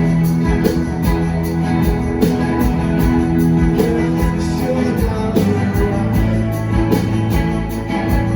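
Live rock band playing: electric guitars holding chords over a steady drumbeat, with little or no singing.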